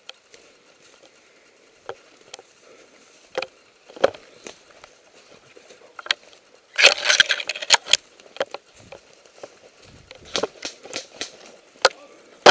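Footsteps and the crackle and rustle of undergrowth and twigs as a person moves through brush, with irregular clicks and knocks, and a louder stretch of rustling about seven seconds in.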